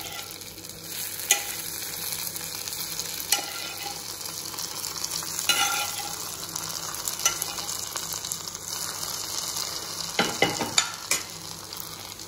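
Hot oil from a tempering of fried grated coconut, mustard seeds and curry leaves sizzling as it meets a coconut-based curry in a steel pan. A steel spoon clinks against the pan now and then, with a quick cluster of clinks near the end.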